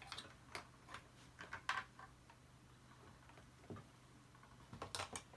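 Scattered light clicks and taps from vacuum cleaner parts being handled and fitted together, the loudest just under two seconds in and a cluster about five seconds in, over a faint steady low hum.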